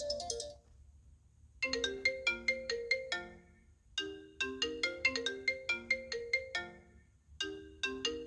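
iPhone ringtones. One ringtone ends with a chiming melody over a high shimmer about half a second in. After a pause of about a second, the next ringtone starts: a melody of quick, separate plucked notes, played in three phrases with short gaps between them.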